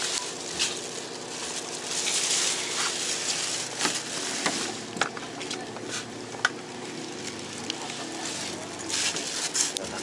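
Plastic bags crinkling and rustling as they are handled and packed into a cooler, with scattered sharp clicks and knocks from the plastic basket and cooler, over a faint steady hum.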